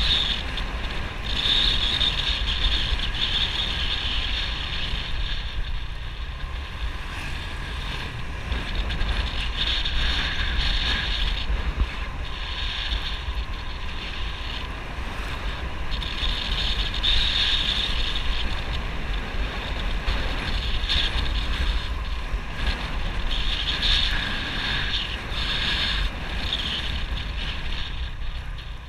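Motorbike riding along a road: wind buffeting the camera microphone, with the engine running underneath in a steady low rumble.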